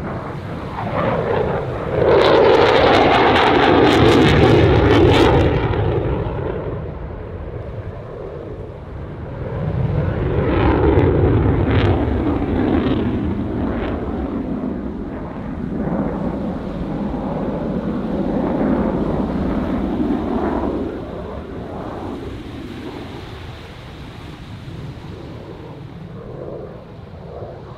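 Eurofighter Typhoon's twin jet engines in afterburner, a broad jet roar that swells and fades in several waves as the fighter manoeuvres. It is loudest and rough-edged about two to six seconds in, swells again around ten seconds in and once more later, then dies away toward the end.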